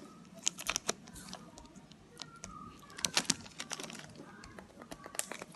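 Aluminium foil wrapper of a chocolate bar crinkling and crackling as it is unwrapped by hand. The crackles come irregularly, in dense clusters about half a second in and again about three seconds in.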